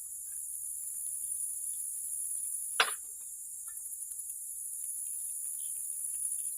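Steady high-pitched chorus of late-summer insects such as crickets, with one short sharp knock a little under three seconds in.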